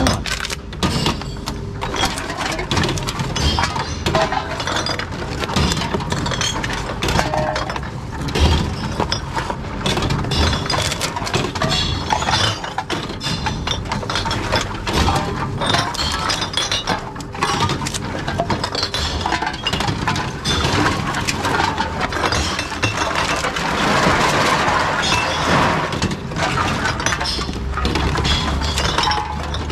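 Glass bottles clinking and breaking inside a reverse vending machine as they are fed in one after another, a steady run of clinks, knocks and shattering glass.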